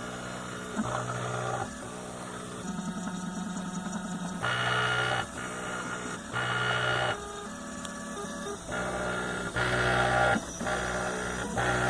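RepRap 3D printer's stepper motors whining through a string of short moves, the pitch and loudness changing abruptly every half second to two seconds as it plots PCB traces with a permanent marker.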